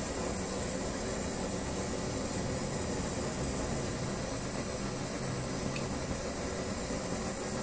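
Brass kerosene pressure stove burning with a steady hiss, its pressurised fuel feeding a tall flame.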